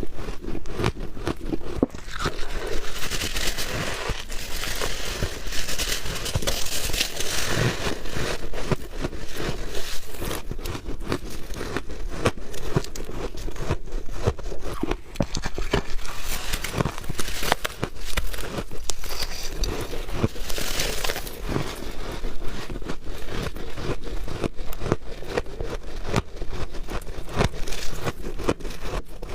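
Close-up crunching and crackling of soft white ice and freezer frost being bitten and chewed, in a dense, irregular run of small crunches.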